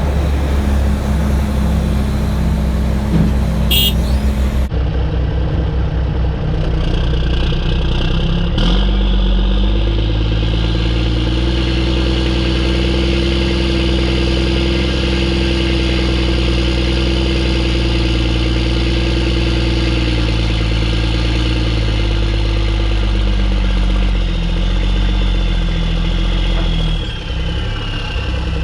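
Mack E7 inline-six turbo diesel in a CH612 truck running steadily with a loud turbo whistle over the engine note. There is a sharp knock about a third of the way in, and the whistle drops in pitch near the end.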